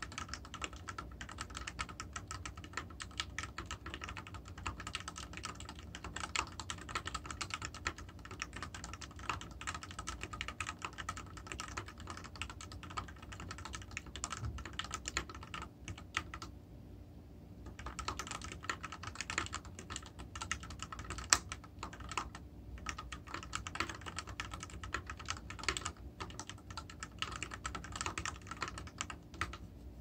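Continuous fast typing on a mechanical keyboard with Gateron Yellow linear switches, a rapid stream of keystroke clacks that pauses for about a second a little past halfway, then resumes.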